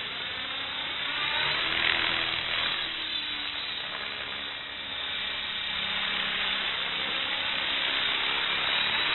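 Electric radio-controlled model helicopter flying: the whirring buzz of its motor and main rotor, rising and falling in pitch as it manoeuvres and settles down to land near the end.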